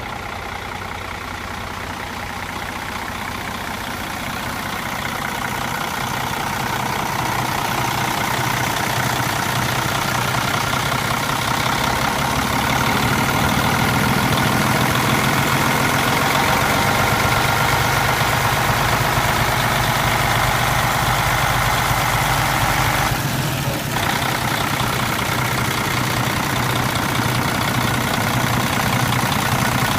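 Mercedes-Benz MBE 4000 inline-six diesel engine of a Freightliner M2 dump truck idling steadily. It grows louder over the first dozen seconds, then holds steady.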